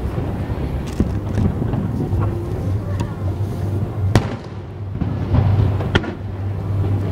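Aerial fireworks shells bursting in the distance: several sharp bangs, the loudest a little past the middle, over a continuous low rumble.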